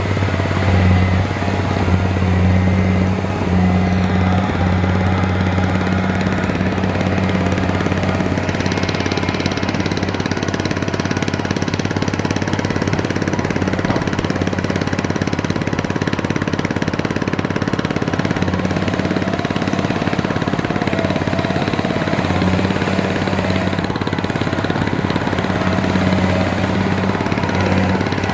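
Heavy farm diesel engine running steadily with a rattling knock; its deep note eases about eight seconds in and comes back strong near the end.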